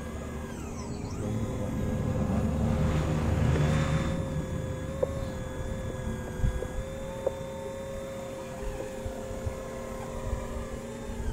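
Radio-controlled scale model CAT 5110B excavator working: a steady motor whine as it swings and digs, with a louder rough noise about two to four seconds in and a few small clicks later.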